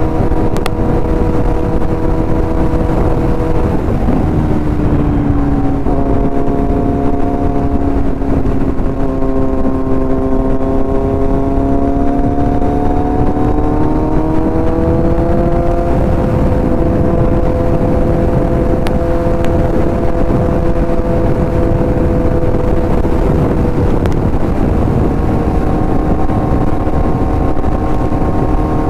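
Kawasaki Z900's inline-four engine running steadily at cruising speed, heard with heavy wind rush. Its pitch sags for several seconds and then climbs back, as the bike eases off and picks up speed again.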